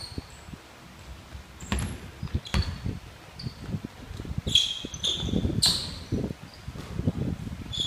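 Basketball sneakers squeaking in short high chirps on a hardwood gym floor, a cluster of them around the middle and again at the end, over the thud of running feet. Two sharp knocks of the ball bouncing come about two seconds in.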